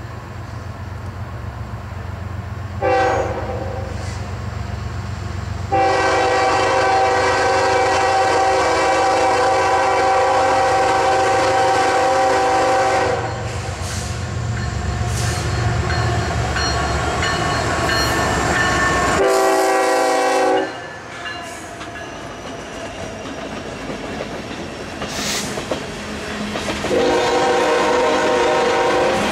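Diesel freight locomotive air horn blowing a crossing signal of four blasts: short, long, short and long, the last starting near the end. Under the first part is the low rumble of the lead locomotives' engines; later, coal hopper wheels click over the rail joints.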